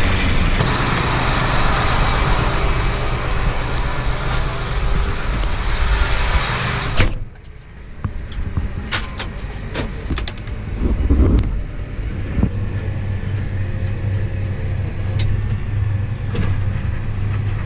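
Farm tractor engine running loud, then a sharp thump about seven seconds in. After the thump the engine sounds much quieter and muffled, with a few light clicks and knocks.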